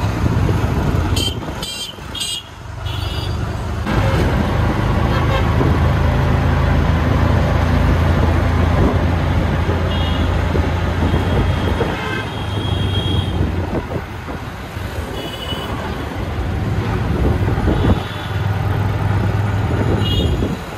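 Busy road traffic: vehicle engines running steadily, with short horn toots sounding repeatedly, about eight times.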